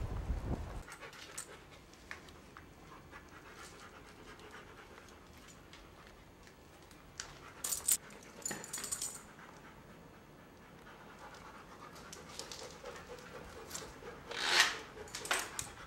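A dog panting, loudest in a run of breaths near the end, with a few sharp clicks and scuffs about halfway through.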